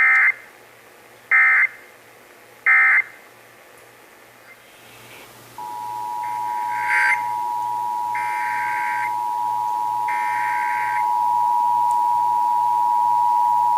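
Emergency Alert System end-of-message data tones: three short SAME digital bursts about a second and a half apart. About five and a half seconds in, the EAS two-tone attention signal starts and holds steady, with three longer, fainter data bursts sounding over it.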